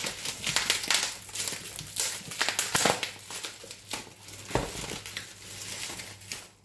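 Packaging crinkling and rustling as it is pulled open and handled, in dense, irregular crackles that die away near the end.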